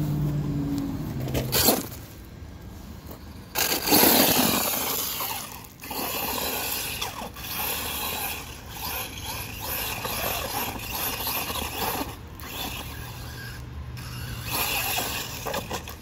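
Brushless-powered RC monster truck driving hard over gravel and dirt: its motor and drivetrain whir while the tyres scrape and throw stones, with sudden loud bursts about two and four seconds in.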